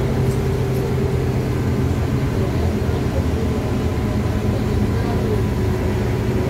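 LiAZ-5293.60 city bus under way, heard from inside the cabin: a steady diesel engine drone with a low hum under road noise.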